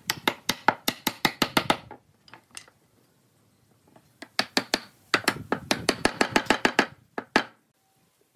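Quick runs of sharp wooden knocks, several a second, as square wooden posts are tapped down into mortise joints in wooden rails. Two long runs with a pause of about two seconds between them, then two last knocks.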